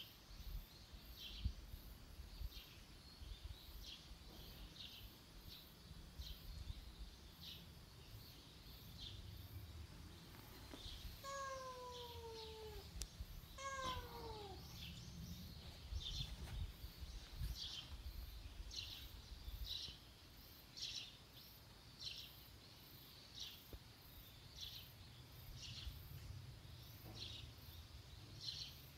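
A stray cat meows twice, about eleven and thirteen and a half seconds in, each a short call falling in pitch. A series of high chirps repeats about once a second in the background.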